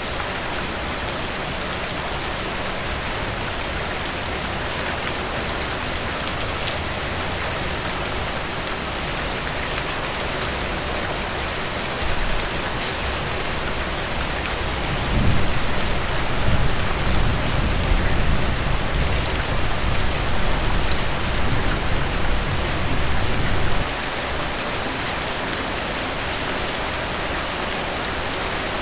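Heavy rain falling steadily, a dense hiss of drops. About halfway through a low rumble joins it for several seconds, then cuts off suddenly.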